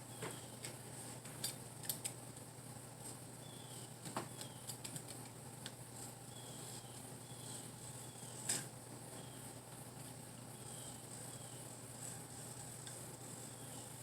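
Light, scattered clicks and scrapes of a razor knife and metal screen frame as excess screen mesh is trimmed along the edge, the sharpest click about eight and a half seconds in.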